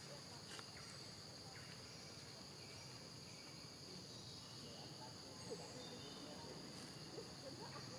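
Faint, steady high-pitched drone of insects in the surrounding forest, with a few faint wavering calls or voices in the last few seconds.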